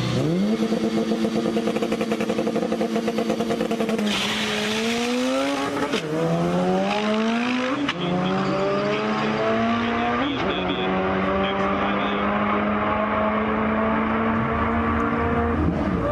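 Turbocharged Honda Civic drag car held at steady revs on the starting line, then launching about four seconds in. Engine pitch climbs through the gears, dropping at three upshifts, as it runs down the drag strip.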